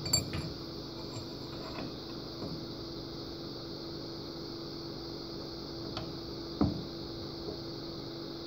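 Steady low mechanical hum, with a faint click about six seconds in and a brief soft thump just after.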